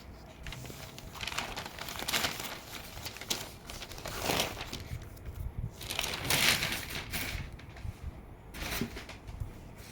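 Packaging being handled while a vinyl record is unboxed, crinkling and rustling in several bursts.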